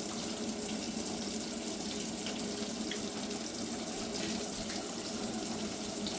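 Steady sizzle of food frying in hot oil in a pan, with a few faint pops.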